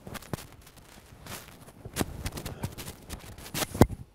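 Clothing rustle as a hoodie is pulled off over the head: irregular brushing and swishing of the fabric, with a sharp knock near the end that is the loudest sound.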